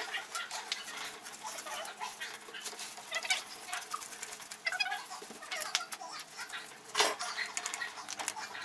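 A stiff brush scrubbing and a metal tool scraping at the grimy casing of an old Elgin sewing machine, in short scratchy strokes, with one sharp knock about seven seconds in. Birds chirp in the background.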